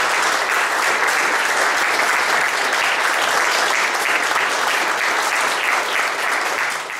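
Lecture-hall audience applauding steadily, ending abruptly in a cut.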